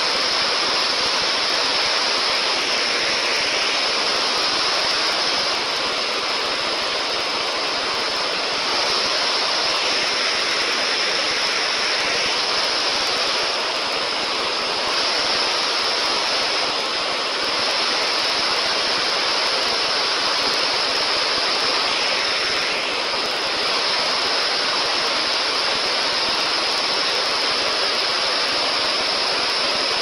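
Snowmelt-swollen woodland stream rushing over rocks and logs in white-water rapids: a steady, loud, even rush of water that swells slightly now and then.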